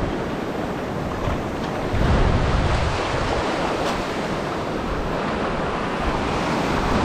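Shallow surf washing in and out over sand at the waterline: a steady rushing hiss of whitewash. Wind buffets the microphone in gusts, strongest about two seconds in.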